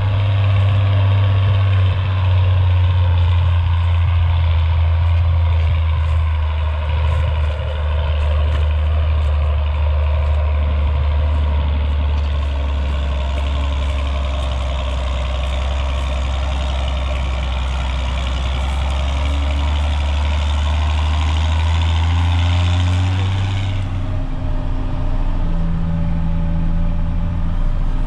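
John Deere tractor engine running hard under heavy load, hauling a fully loaded lime spreader up a steep slope: a steady, loud low drone. About four seconds before the end a higher hiss above it cuts off and the engine note drops.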